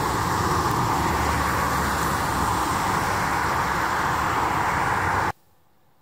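Steady road traffic noise on wet streets: a continuous even hiss of passing vehicles, cutting off suddenly near the end.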